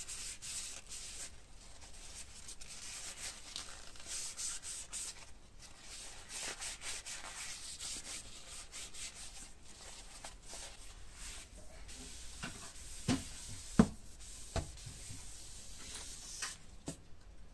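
A cloth rubbing oil into the wooden handle of a walking stick: a soft, high scrubbing hiss in quick repeated strokes. Near the end the rubbing stops and three light knocks follow, the middle one loudest.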